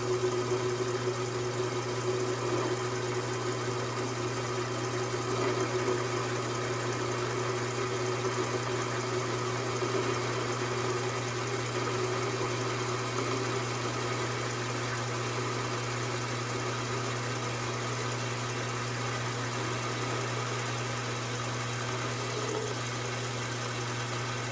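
Taig micro lathe running steadily, its motor and belt-driven spindle humming evenly while the tool turns down a mild steel workpiece.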